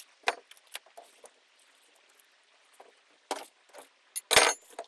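Scattered clinks and knocks of tools and pieces of fiberglass being handled while stringers and foam are torn out of a boat hull, with the loudest knock, carrying a dull thud, near the end.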